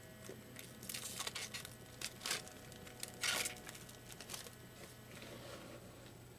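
Trading-card pack wrapper being torn open and crinkled by hand, in several short rustling bursts, the loudest about three seconds in.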